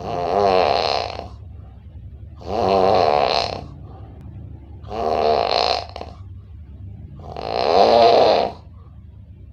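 A person snoring: four snores, each about a second long and roughly two and a half seconds apart, over a steady low hum.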